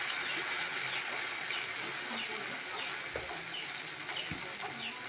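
Malpua batter frying in hot oil in a pan, sizzling with a steady hiss and small crackles.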